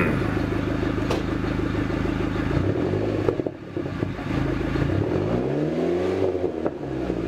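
Dodge Neon SRT-4's turbocharged 2.4-litre four-cylinder running through its stock exhaust, with a few sharp backfiring pops. The engine is revved up and back down about five seconds in.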